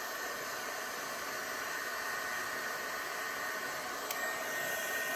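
Hot air gun running with a steady blowing hiss and a faint high tone, shrinking heat-shrink tubing over a soldered wire joint. A single light click about four seconds in.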